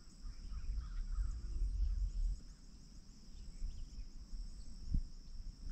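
Steady high-pitched drone of insects chirring in the pasture grass, over an uneven low rumble, with a soft knock about five seconds in.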